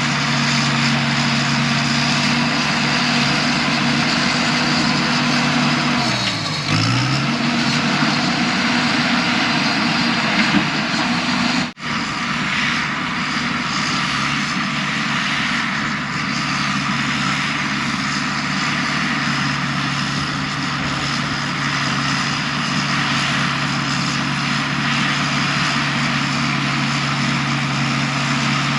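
Diesel engine of heavy earthmoving equipment running steadily at working speed. Its pitch dips briefly and comes back about six seconds in, and the sound breaks off for an instant near the middle.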